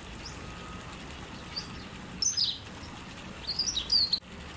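Silvereyes calling: thin, high arching call notes, then louder clusters of sharp chirps a little over two seconds in and again near the end.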